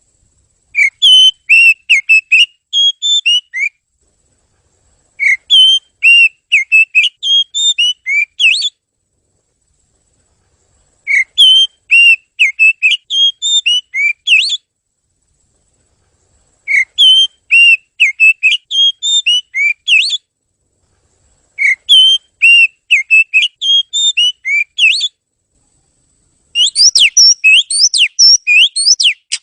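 Oriental magpie-robin (kacer) singing: loud phrases of clear whistled notes about three seconds long, repeated five times with short silent gaps. A faster, denser run of notes begins near the end.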